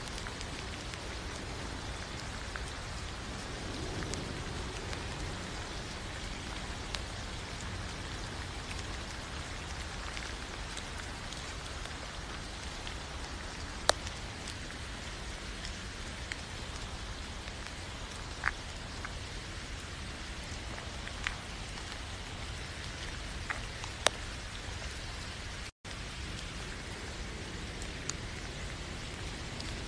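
Steady rain falling, an even hiss with a handful of louder single drops landing close by. The sound cuts out for a split second about 26 seconds in.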